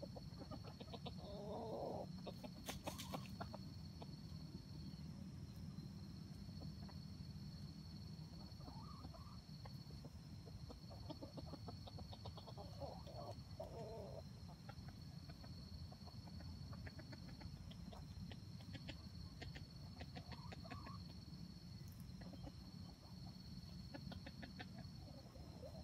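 Red junglefowl clucking softly now and then, a few short calls spread through, over a steady high insect drone that breaks off briefly at times.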